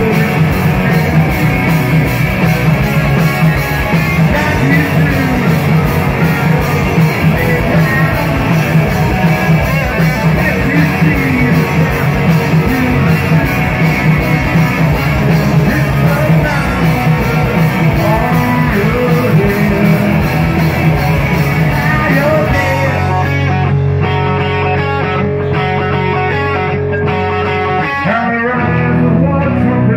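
Live rock band playing loud: a singer over electric guitars, bass and drums. About three-quarters of the way through the drums and cymbals fall away, leaving held, ringing guitar notes.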